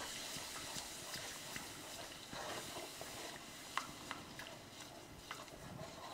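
Wooden spoon stirring milk into a hot shortening-and-flour roux in a saucepan for country gravy: a faint, steady sizzle with scattered light knocks of the spoon against the pan, the sharpest about four seconds in.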